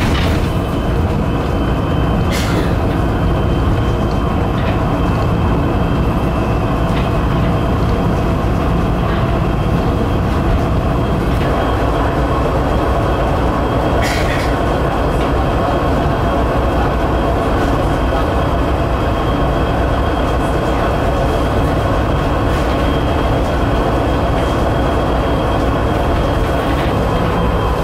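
Interior ride noise of a battery-electric low-floor bus cruising at freeway speed, around 75 km/h: a steady rumble of tyres and wind with a constant high whine and an occasional sharp click or rattle.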